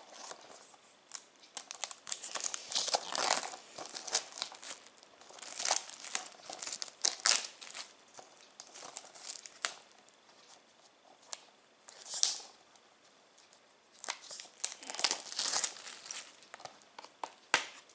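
Plastic shrink wrap being torn and peeled off a Blu-ray case: irregular crinkling and crackling that comes in bouts, with quieter moments in between.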